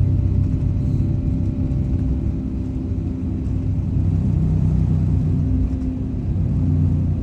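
Jet airliner engines running at takeoff or climb power: a steady low rumble with a few held engine tones.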